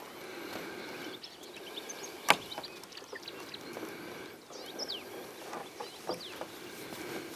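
Outdoor ambience with small birds chirping in short high calls over a steady background hiss, and one sharp knock about two seconds in.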